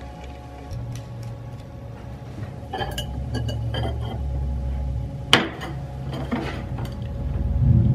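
Metal clinks and clicks from hand tools working a bare aluminum steering wheel rim on a steel bench, with one sharp metallic snap about five seconds in, over a steady low hum.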